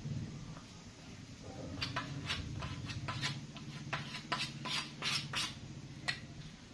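Homemade wood filler of wood glue and sanding dust being scraped onto a wooden board in a run of short, quick, squeaky strokes starting about two seconds in, over a steady low hum.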